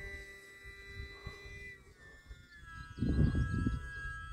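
Small electric RC plane's brushless motor and propeller whining overhead at a distance, as a steady pitched tone that drops in pitch about two seconds in as the throttle comes back. A louder low rumble cuts in about three seconds in.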